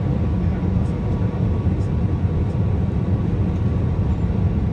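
Steady low roar of an Airbus A320's engines and airflow heard from inside the passenger cabin, with a faint steady hum.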